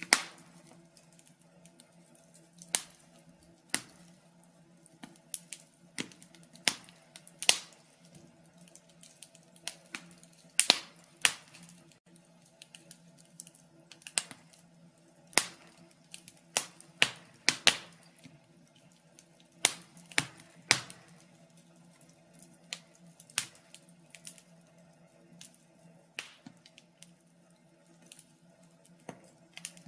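Wood fire in a fireplace crackling: sharp, irregular pops and snaps, loud ones every second or two, over a faint steady low background.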